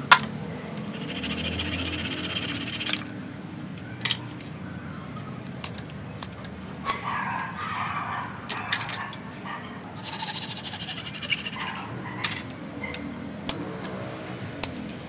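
Gloved hands scraping and picking at the rough bare trunk and roots of a fig bonsai stock: irregular sharp clicks and snaps, with two longer scraping stretches of about two seconds each.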